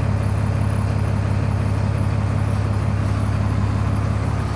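1996 Blue Bird bus engine idling steadily, with an even pulsing beat, warming up after its first start in nearly three weeks.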